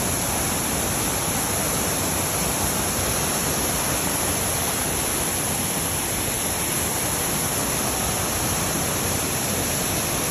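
Waterfall pouring into its pool: a steady, loud rush of falling water.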